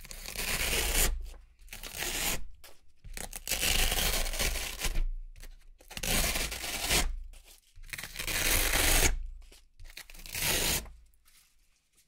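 Velcro (hook-and-loop) strips being peeled apart by hand: about six ripping pulls, each lasting one to two seconds, with short pauses between them.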